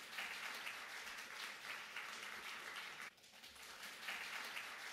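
Audience applauding, a dense patter of many hands clapping, with a brief dip about three seconds in.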